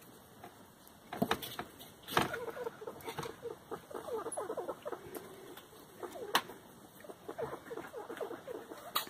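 Pet rat breathing with a wheezy, crackly rattle, many short crackles in quick irregular succession, with a few sharp sneezes. These are the signs of his chronic upper respiratory infection.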